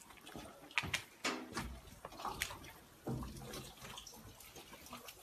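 Faint ambient sound with scattered clicks and knocks, the sharpest a little under a second in and about two and a half seconds in.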